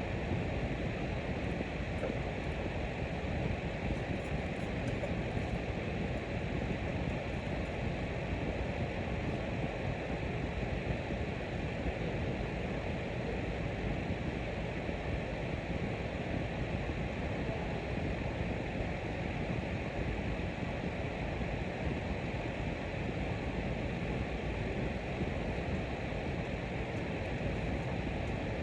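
Fan running steadily: an even rush of air that stays the same in pitch and level throughout.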